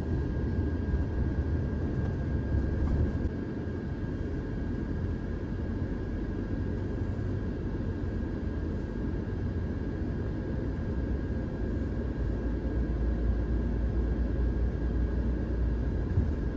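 Steady low rumble of a Thor Sanctuary campervan's engine and tyres, heard from inside the cab while driving slowly along a sandy dirt road, with a faint steady whine above it.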